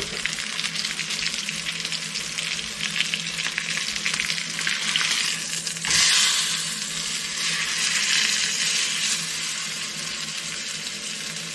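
Beef chuck roast searing in hot fat: a steady sizzle with crackling, which flares up louder about six seconds in and then settles.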